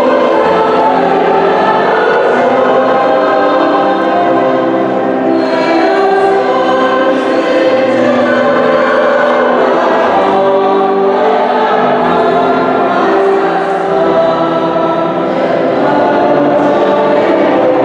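Church choir singing a hymn in long held notes.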